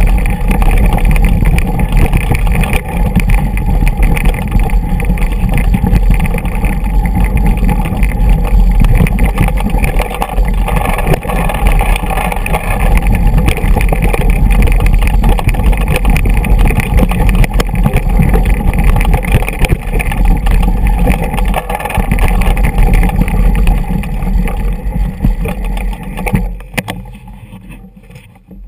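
Mountain bike rattling and jolting down a rocky dirt trail, with wind rumbling on a GoPro's microphone. The noise fades away near the end as the bike slows to a stop.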